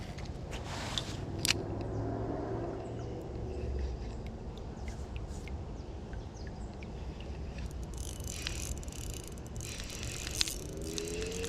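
Outdoor ambience: a steady low rumble with scattered sharp clicks and ticks, turning busier with high chirping about eight seconds in.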